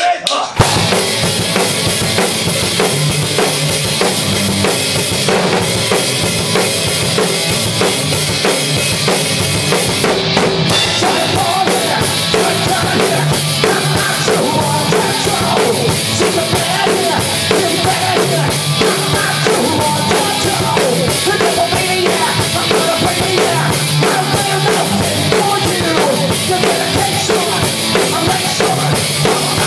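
Punk rock band playing loudly in a small room: a drum kit's bass drum, snare and crashing cymbals under electric guitar. The song kicks in about half a second in.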